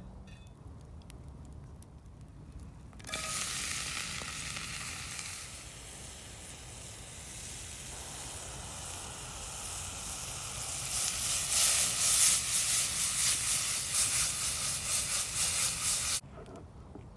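Food sizzling as it fries. The sound starts suddenly about three seconds in, grows louder and more crackly toward the end, then cuts off abruptly.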